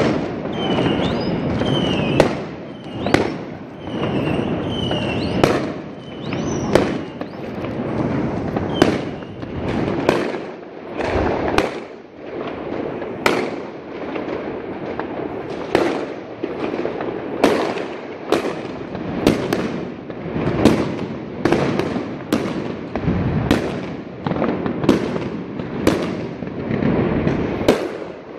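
New Year's Eve fireworks going off all around: a sharp bang about every second over a continuous din of more distant bangs and crackle from aerial bursts. Short high whistles fall in pitch among them for the first seven seconds or so.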